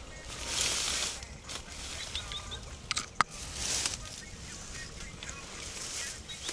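Dry reeds and rushes rustling as a hand pushes them apart, in three separate surges, with a sharp click a little after three seconds in.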